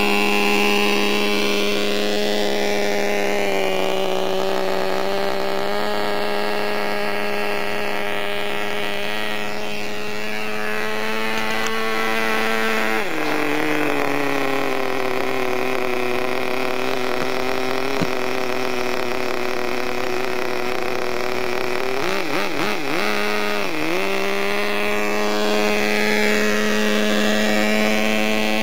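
Nitro RC truck's small two-stroke glow engine running at a steady high pitch. Its note drops lower about halfway through, wavers up and down briefly, then settles back to the first pitch.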